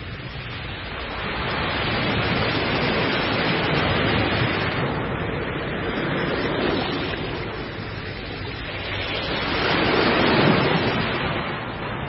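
Heavy ocean surf: the continuous rushing wash of large breaking waves, swelling louder a few seconds in and again near the end.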